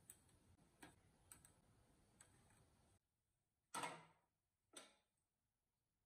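Faint, sharp clicks of metal spoons tapping against each other and the wire cooling rack as buns are set down. Then two louder short clattering knocks about a second apart as a metal baking tray is moved with an oven mitt.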